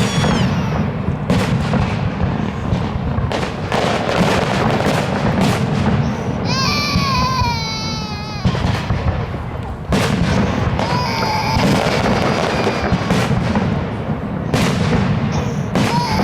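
A fireworks display: shells bursting in a rapid, irregular series of bangs and crackles over a continuous rumble. A wavering high-pitched wail rises and falls twice, about halfway through and again later.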